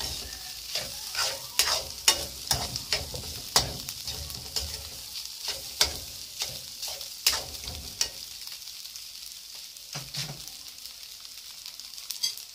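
Metal spatula scraping and knocking against a metal wok as scrambled egg and ham are stir-fried, over a steady sizzle. The scraping stops about two thirds of the way through, leaving the sizzle.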